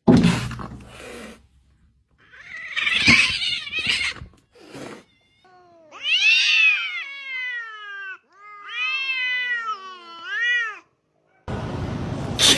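A cat yowling: one long drawn-out call that rises and falls, then two more wavering calls. Before the calls come a couple of rough, noisy sounds, and a burst of noise near the end.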